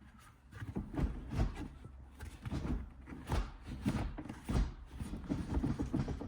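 Irregular soft knocks and rubbing, like handling noise.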